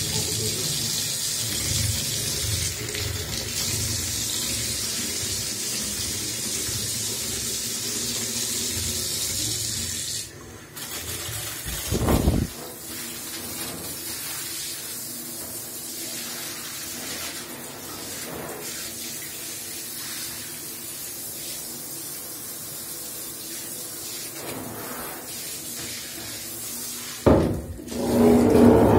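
Water from a newly installed bath mixer running into a bathtub: a steady hissing stream, which drops out briefly about ten seconds in, then the handheld shower head spraying steadily. There is a short louder gush or knock about twelve seconds in, and louder splashing and handling noise near the end.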